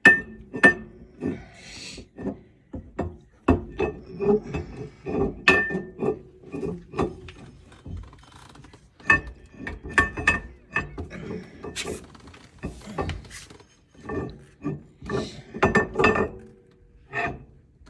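Steel rear axle shaft being slid and worked into the axle housing: a long series of irregular metallic knocks and clinks, some of them ringing briefly, until it goes home.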